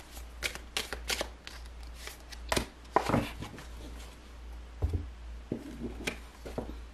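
A deck of round oracle cards being shuffled by hand: a run of quick, irregular clicks and taps as the cards slide and slap together. There is a low knock a little before five seconds in.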